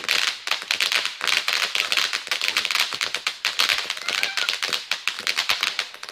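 Consumer firework crackling: a dense, unbroken run of rapid small pops and snaps.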